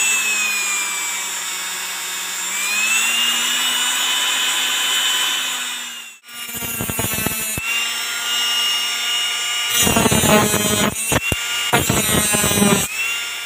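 RS775 DC motor spinning a small iron cut-off disc, its high whine dipping and then rising as the speed is changed. After a brief break it runs again, and in the second half a steel rod is pressed against the disc, giving a harsh, uneven grinding of metal.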